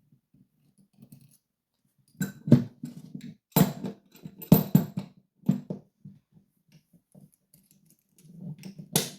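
Sharp metal clicks, knocks and scraping of tools working on an Abloy Classic 341 padlock as a screw is taken out of it. They start about two seconds in as a run of separate knocks, with a loud one near the end.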